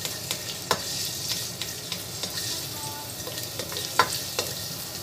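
Minced garlic sizzling in hot oil in a stainless steel wok, stirred with a spatula that knocks and scrapes against the pan. The loudest knock, with a short ring, comes about four seconds in.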